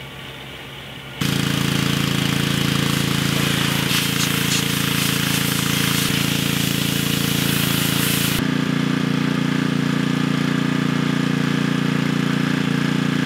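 Gas-engine pressure washer running steadily, with the loud hiss of its spray wand blasting the cement mixer drum starting about a second in. The spray hiss cuts out about eight seconds in while the engine keeps running.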